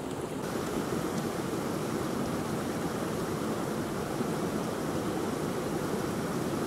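Steady outdoor rushing noise with no distinct events. It turns brighter and a little louder all at once about half a second in.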